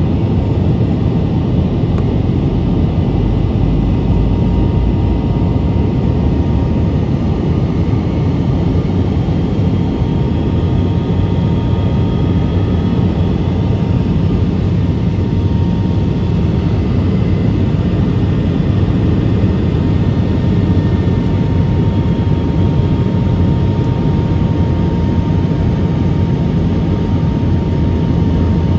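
Steady noise of a passenger jet's engines and airflow heard from inside the cabin, a low, even rumble with a faint engine whine.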